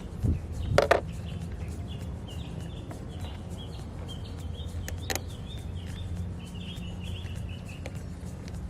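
A few sharp metallic clicks and knocks, the loudest about a second in and another near the middle, as a ring terminal is fastened onto the car battery's positive terminal. A bird chirps repeatedly throughout over a steady low hum.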